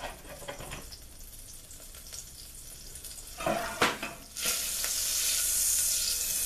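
Butter melting and sizzling in a hot pot, foaming as it fries. A few knocks sound about three and a half seconds in, and about a second later the sizzle turns suddenly louder and holds steady.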